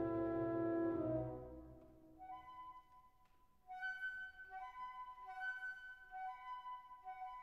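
Background instrumental music: a held chord fades away over the first two seconds, then a quieter, slow melody of repeated notes moving back and forth between two pitches begins.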